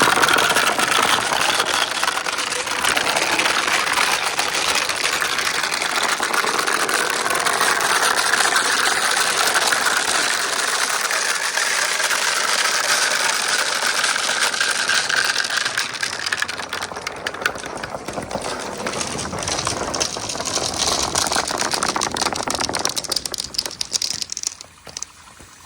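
Glass marbles rolling and clattering down a plastic marble-run course with water flowing through it, a dense run of fine ticks over a steady wash that thins out near the end.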